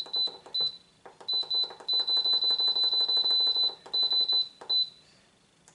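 Instant Pot electric pressure cooker's control panel beeping as its time button is pressed to lower the cooking time: a few separate short high beeps, then a fast steady run of beeps in the middle as the time counts down, then a few more single beeps that stop about a second before the end.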